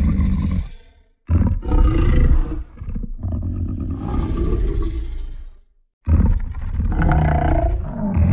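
Spinosaurus sound-effect roars: one fades out about a second in, then two long, deep roars of several seconds each follow, with short silences between them.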